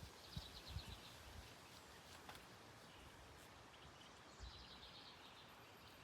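Near silence with faint outdoor background, and distant birds chirping in two short trills. A few faint soft knocks are heard under them.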